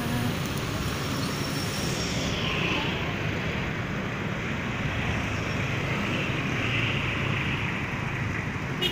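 Steady road traffic: cars and vans running along a busy city street, a continuous low rumble with one short click just before the end.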